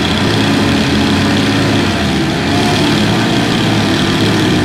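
Single-cylinder four-stroke motorcycle engines, a Suzuki GS 150 and two 70cc Unique bikes, running hard under load as they pull against each other on a rope. The engine drone holds at a steady pitch.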